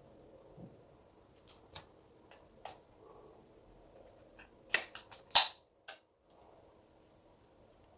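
Scattered sharp clicks and taps from small parts and tools being handled on a drone repair bench, loudest as two clacks about five seconds in.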